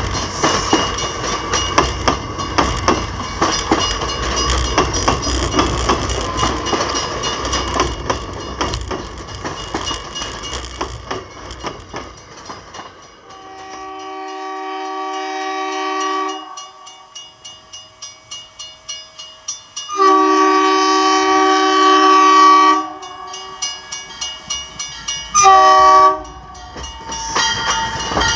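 Commuter train cars rumbling and clicking over the rails as they pass, fading away. Then an approaching commuter train sounds its multi-chime air horn for the crossing: a long blast, a louder long blast, a short one, and another beginning near the end, with the crossing bell dinging quickly between blasts.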